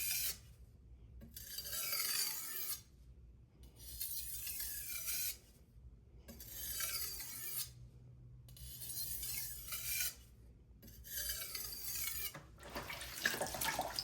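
Knife edge drawn across a whetstone in light, alternating finishing strokes to clean off the burr: a hissing scrape about every two seconds, six strokes with short pauses between.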